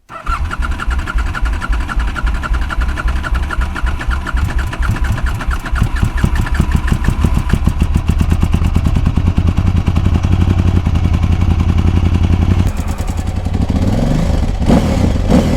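KTM 950 Adventure S's LC8 V-twin engine running under load as the heavy bike is ridden out of soft, sinking ground, its revs rising through the middle and dropping back to a lower, steadier run near the end.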